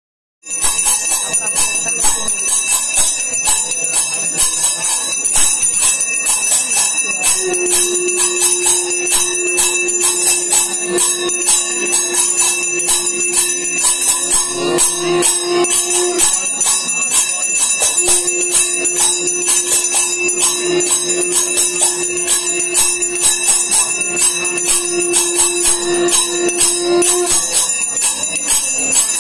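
Temple bells ringing rapidly and without pause during the puja. A steady low note is held for about eight seconds, stops, then is held again for about nine seconds.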